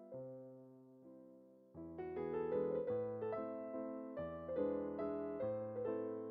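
Background piano music: a held chord fades out, then a gentle run of notes starts about two seconds in.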